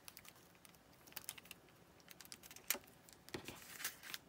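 Faint, scattered clicks and light taps of cardstock being handled: a small paper leaf cluster being handled and pressed into place on a handmade card, with a brief paper rustle near the end.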